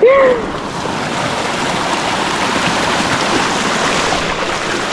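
River water rushing steadily: an even, unbroken hiss of flowing water.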